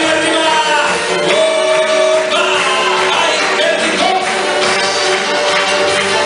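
A live big band with saxophones playing a song while two male vocalists sing into microphones.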